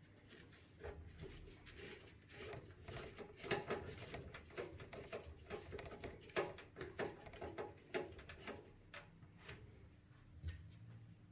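Small screws being driven in with a screwdriver to mount an AIO water-cooling radiator in a PC case: a dense run of small clicks, scrapes and rattles that thins out after about nine seconds.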